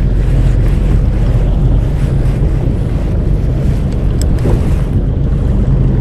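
Wind buffeting the microphone over waves slapping at a small fishing boat's hull at sea: a loud, steady rumble without breaks.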